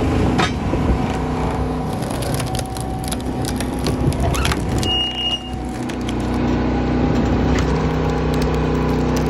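Engine-driven firewood machine running steadily while logs crack and splinter under it, with sharp cracks scattered throughout and a brief high squeal about five seconds in.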